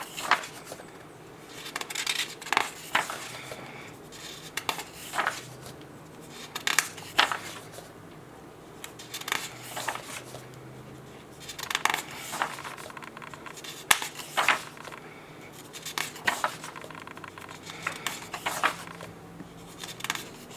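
Paper pages of a workbook being turned one after another, a short rustling swish every second or two.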